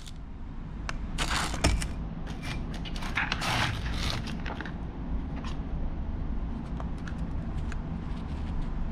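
Crinkly rustling and light clicks of small white packets being handled and pulled out of a clear plastic box, heaviest in the first half, over a steady low hum.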